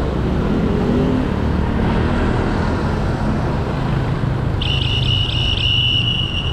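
Street traffic heard from a moving bike: steady road and wind noise with motor vehicle engines running nearby. A little past halfway a high-pitched tone comes in, pulsing rapidly at first and then held steady.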